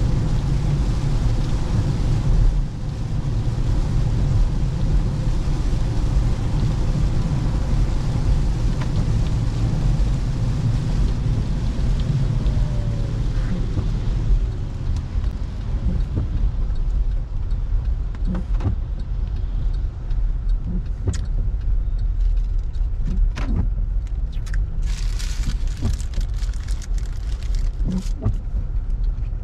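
Car on the move: a steady low rumble of engine and tyres with road hiss that eases about halfway through, then scattered light clicks and rattles.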